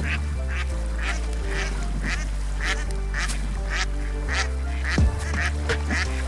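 Ducks quacking, short calls repeating about twice a second, over background music of held low notes, with a low thump about five seconds in.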